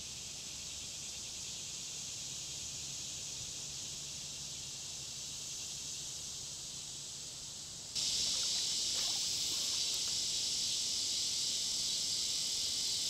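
Steady high buzzing chorus of insects, even and without a beat, that gets suddenly louder about eight seconds in.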